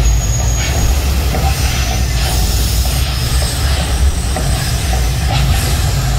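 Mirage volcano show erupting: a loud, steady low rumble with hissing, swelling briefly several times as gas fireballs burst up.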